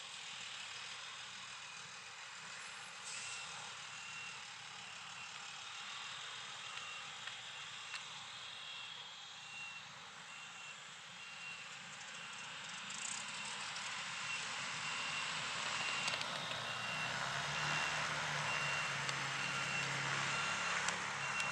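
A ground vehicle's reversing alarm beeping at an even pace over a steady hiss of aircraft and ramp noise, which grows louder with a low hum in the last few seconds.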